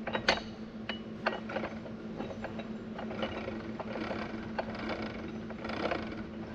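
Steel gears and clutch collars of an Eaton RTLO16913A 13-speed truck transmission clicking and clinking irregularly as the gear train is turned by hand and shifted into each gear to check it, over a steady low hum.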